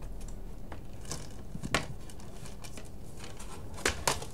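Blu-ray box set packaging being handled: light rustling with scattered clicks, one sharp click a little under two seconds in and a few more near the end.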